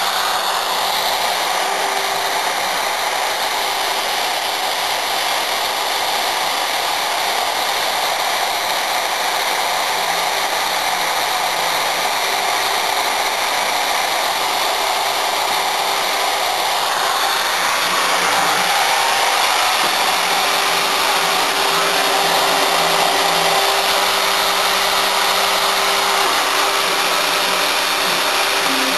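CNC router spindle running with a 90-degree quarter-inch V-bit carving lines into wood: a loud, steady whine and hiss. About seventeen seconds in, part of the higher whine stops abruptly as the cut changes, and the machine keeps running.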